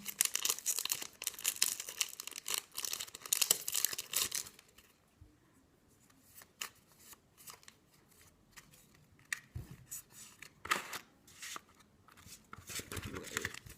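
Foil booster pack wrapper crinkling and being torn open, a dense crackle for the first four seconds or so. After that, only faint occasional rustles and clicks of the wrapper and cards being handled, with a brief louder rustle near the end.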